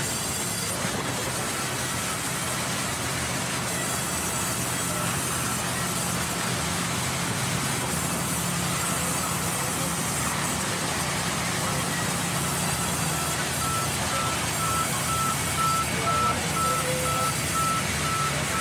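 Sawmill band saw running steadily and cutting lengthwise through a log fed by hand, with a constant motor hum under the cutting noise. A string of short, evenly spaced high beeps sounds over it in the last few seconds.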